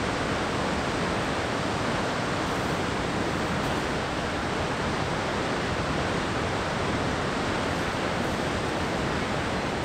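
Huka Falls on the Waikato River: a steady, unbroken roar of a large volume of water pouring over the falls and rushing through the rock channel.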